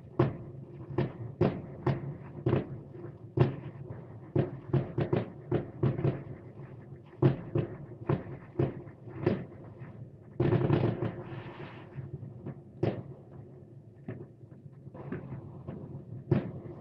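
Fireworks salute: a rapid, irregular series of bangs, several a second at times, with a denser noisy stretch lasting about a second and a half a little past the middle.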